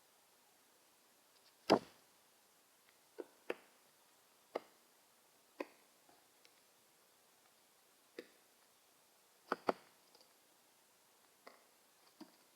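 Blue jays pecking: about ten sharp, separate knocks and taps at irregular intervals, the loudest about two seconds in and a quick double knock near ten seconds.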